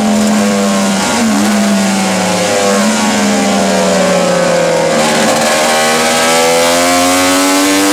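Racing motorcycle engine heard from an onboard camera, running hard under steady throttle with wind rush over the microphone. Its note holds fairly steady, dipping slightly about a second in and climbing near the end.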